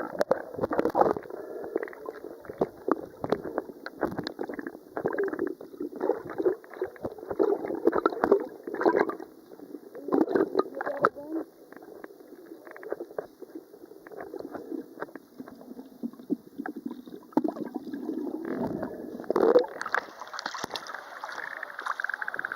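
Seawater sloshing and gurgling close to the microphone in irregular, choppy surges, with the sound dull and muffled.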